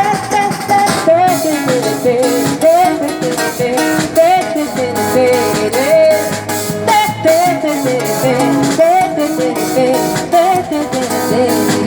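A samba band plays, with plucked strings over a steady bass and a wordless voice sliding up and down in short squeaking glides about once a second, imitating a cuíca.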